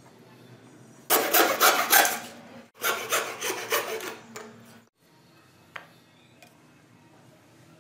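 Rapid rasping strokes of a tool working wood, in two bursts, the first about a second long and the second about two seconds, followed by a faint tap.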